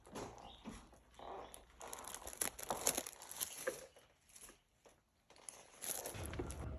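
Soft rustling and crinkling in short, irregular bursts, as kittens shift about on a sheet in a playpen.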